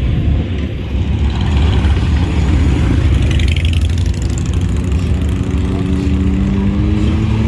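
Motorcycle engines running with a steady low rumble; one engine's pitch rises gently over the last couple of seconds.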